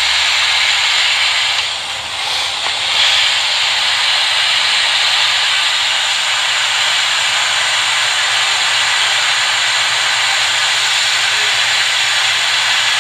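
Hot air rework station blowing a steady hiss of hot air onto a phone logic board to melt the solder under the Tristar charging chip. The hiss dips briefly and shifts about two seconds in.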